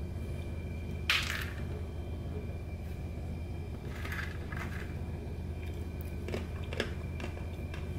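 Dry instant ramen noodle block crackling and crunching as fingers handle it. There is a sharp crunch about a second in, then a few smaller crackles later, over a steady low hum.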